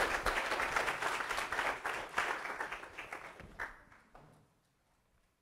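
Audience applauding, many hands clapping at once, thinning out and dying away about four seconds in.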